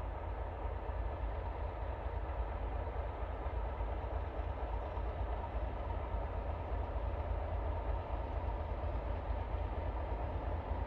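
Diesel locomotive's engine running steadily as it hauls coaches slowly along the line towards the listener, a deep even drone with no sharp knocks or horn.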